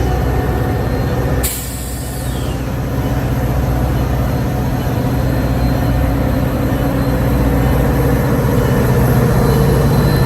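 A train at a station platform, running with a steady low hum. A sudden burst of air hiss comes about a second and a half in, typical of air brakes. The hum grows louder toward the end.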